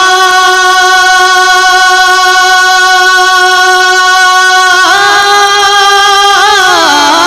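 A singer's voice holding one long note of an Urdu devotional kalam, steady for about five seconds, then breaking into a wavering, ornamented run that falls in pitch near the end.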